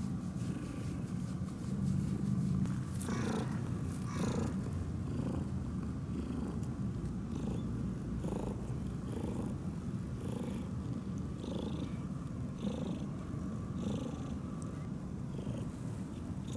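Orange tabby cat purring steadily as it is stroked, a close, continuous low rumble that swells softly with each breath.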